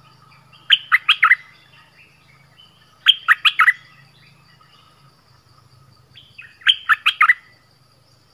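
Caged bulbul, the bird Thai keepers call นกดอกแตง, calling loudly in three bursts of about four quick notes each, some three seconds apart. A faint steady insect drone runs underneath.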